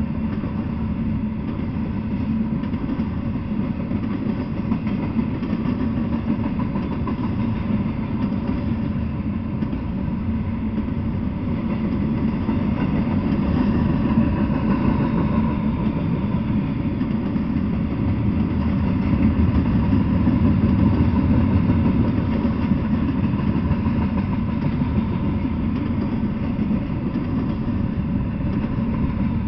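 Double-stack intermodal freight train cars rolling past: a steady rumble of steel wheels on rail, swelling a little toward the middle.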